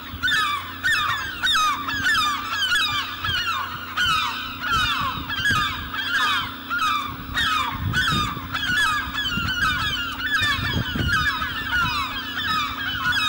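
A large flock of birds calling all at once: many overlapping honking calls without a break, over a steady low hum.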